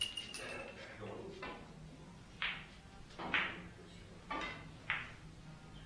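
Billiard balls striking during play: a sharp, ringing click right at the start, then four short knocks spread over the following few seconds.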